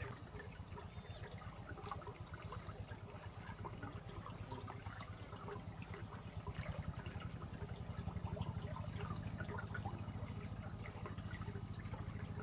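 Flowing river water trickling steadily along a reedy bank, over a steady high-pitched hiss.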